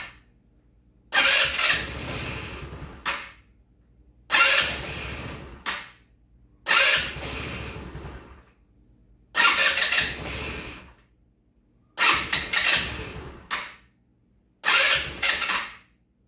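A GY6 150 scooter engine is cranked on its electric starter six times in a row, each try lasting about one and a half to two seconds. Each time it catches briefly and dies at once. The owner first takes this for air in the fuel lines, and it turns out to be a fuel delivery fault.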